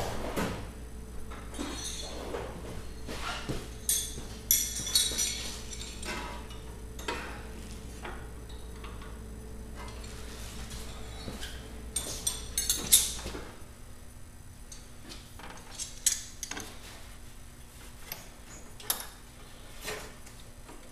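Irregular metal clinks and taps from hand tools working on a John Deere 317 garden tractor's drive shaft coupling, some ringing sharply, loudest about four and thirteen seconds in. A steady low hum underneath cuts off about thirteen seconds in.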